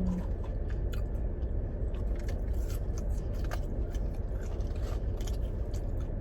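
Someone chewing and crunching McDonald's fries: scattered small crunchy clicks and scrapes over a steady low rumble.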